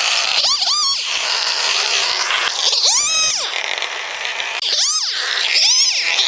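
Newborn kittens mewing: about six thin, high cries, each rising then falling in pitch, in twos and singly, over a steady high hiss.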